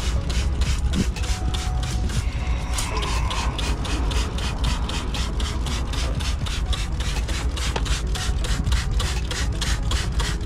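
Trigger spray bottle pumped rapidly, about five short sprays a second, spraying aluminum brightener acid onto an aluminum semi truck wheel. A steady low rumble runs underneath.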